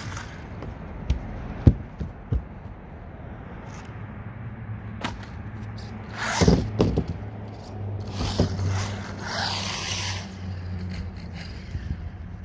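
Small RC car being handled and driven on a concrete driveway: three sharp knocks in the first two and a half seconds, then a loud scraping burst about six seconds in and more scraping and rolling noise over the next few seconds as it drives off, with a low hum underneath.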